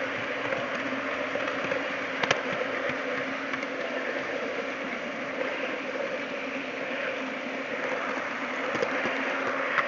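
TT-scale model train running on its track, heard from a camera riding on one of its wagons: a steady motor hum under a continuous rattle of the wheels, with a single sharp click about two seconds in.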